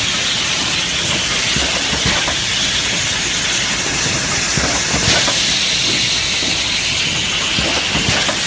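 Ten-lane cup water filling and sealing machine running: a loud, steady hiss with scattered faint clicks and knocks.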